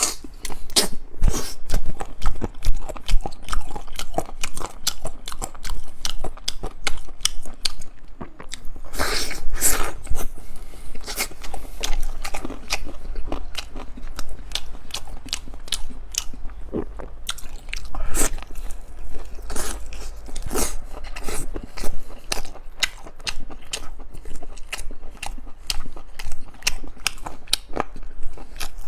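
Close-miked eating: a person bites and chews crunchy food, a dense run of crisp crunches with a few louder bites along the way.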